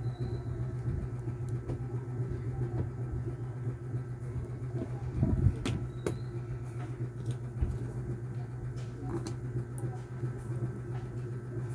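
A steady low hum with scattered small clicks and taps, and a louder knock about five and a half seconds in.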